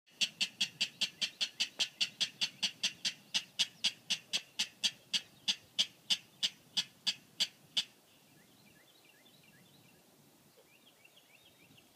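A large marsh rail of the King–Clapper Rail group calling: a long series of short, sharp notes, about three to four a second, slowing a little before it stops about eight seconds in.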